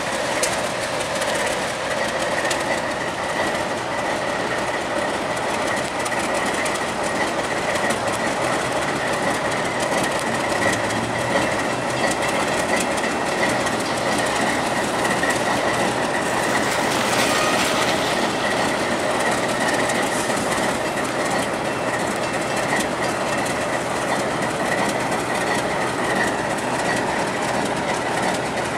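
A pair of ALCO RS3 diesel locomotives rolling slowly past with their engines running, wheels clicking over the rail joints, and a steady high-pitched wheel squeal over the rumble.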